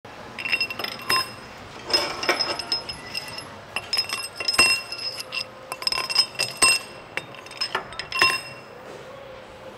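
Steel tie rods being slid through the cast stainless body loops of a multistage centrifugal pump, clinking and rattling against the metal in several clusters, each knock leaving a short bright ring.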